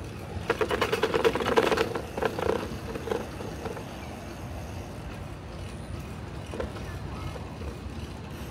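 Bicycle rolling over raised painted rumble strips: a rapid run of rattling knocks for about a second and a half, a few more bumps after it, then the steady low rumble of the tyres rolling on smooth asphalt.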